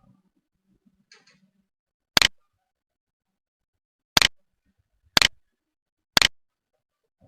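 Computer mouse clicking: four sharp single clicks, the first two about two seconds apart, then two more a second apart.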